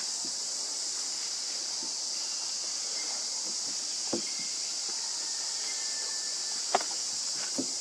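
Steady high-pitched chorus of insects, with a few short sharp clicks about four, seven and seven and a half seconds in.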